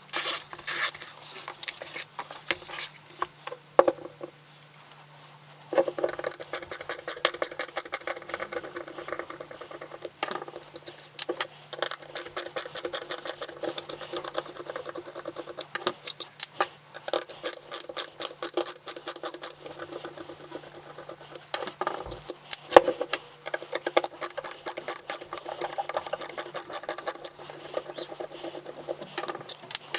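Screws being undone from the plastic case of a 12 V DeWalt battery pack with a T10 security Torx bit in a hand screwdriver: rapid clicking and scratching of the tool, with short pauses about four to six seconds in and about two-thirds of the way through. A faint steady hum runs underneath.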